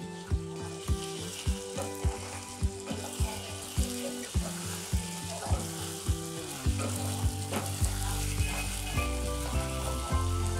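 Chicken pieces and ginger-garlic paste sizzling in hot oil in a nonstick wok as a spatula stirs them, over background music with a steady beat.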